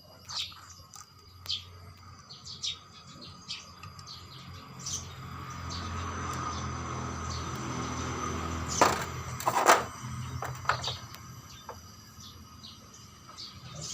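Birds chirping, with a steady low hum underneath that swells in the middle. Two loud sharp knocks come about nine and ten seconds in.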